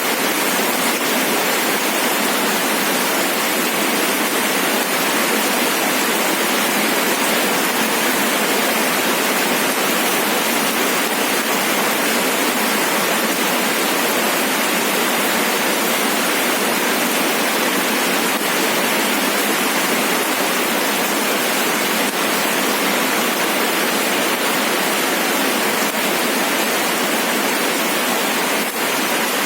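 Steady rain falling, an even hiss with no single drops standing out and no low rumble.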